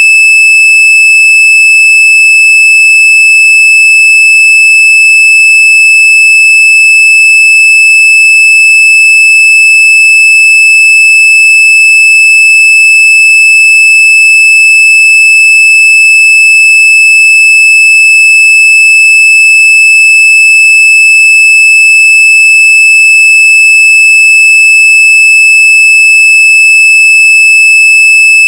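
Vehicle reverse parking sensor sounding one loud, continuous high-pitched tone with no breaks between beeps. This is the solid tone that signals an obstacle at the nearest distance behind the vehicle.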